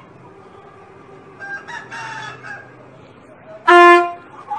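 A fainter pitched call, then near the end one loud, short, steady-pitched squawk.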